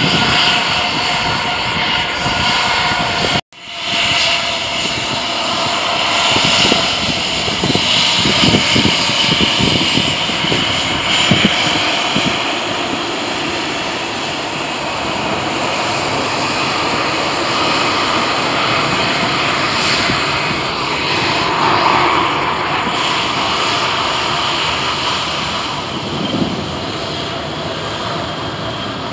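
Boeing 737-800's jet engines running at low power as the airliner rolls out and taxis after landing: a steady broad rumble with a high whine, strongest in the first dozen seconds.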